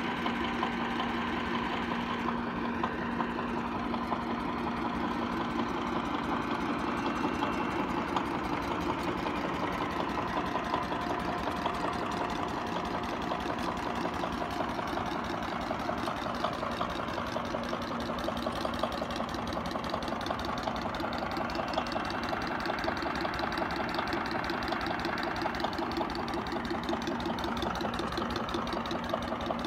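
A 1940s 12 hp Witte 12MD diesel electric plant running steadily at idle, its diesel engine knocking at an even rhythm with a steady tone held over it.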